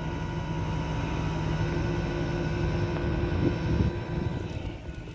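Flatbed tow truck's engine running steadily with an even hum, quieter near the end.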